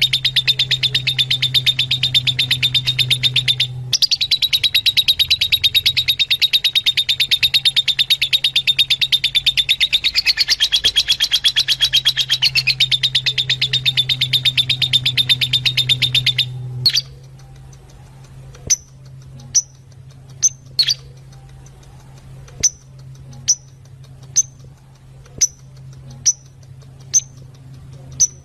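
Fischer's lovebirds chattering in a fast, continuous run of high chirps for about the first two-thirds, with a short break near the start. After that come single sharp chirps about once a second, over a steady low hum.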